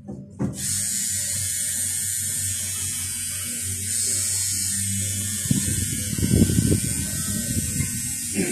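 Tattoo machine buzzing steadily as it needles ink into skin, switching on about half a second in. A stretch of louder low knocks and rustling comes in the middle.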